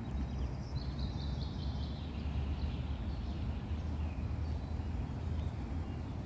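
A small songbird sings one trill of quick notes that falls steadily in pitch over about three seconds, over a steady low rumble of background noise.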